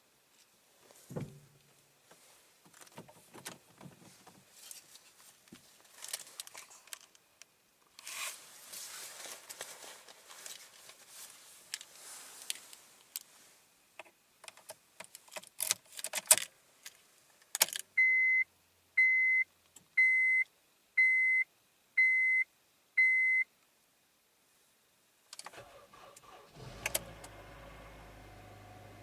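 Keys jangling with scattered clicks and rustles, then six short high electronic beeps about a second apart. After a brief pause, the Honda Civic Type R EP3's 2.0-litre K20 four-cylinder is started from cold near the end and settles into a steady idle.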